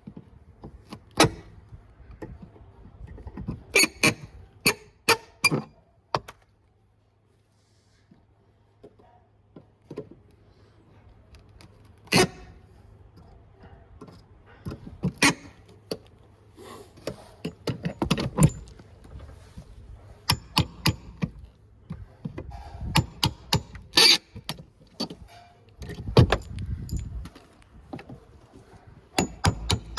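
Irregular sharp knocks, clatter and thunks from work on old wall framing, coming in clusters, with a heavier thump near the end and a short spell of near silence about seven seconds in.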